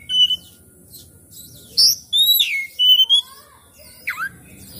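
Oriental magpie-robin singing: a short whistled note, a pause, then a run of loud clear whistles (a falling whistle, a held note and lower slurred notes), and a brief downward-sliding note near the end.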